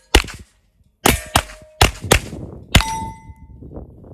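Rimfire rifle firing quickly at steel plates, with the plates ringing as they are hit. There are six shots: one just after the start, a short pause, then five in quick succession. The last plate rings on with a clear tone for nearly a second.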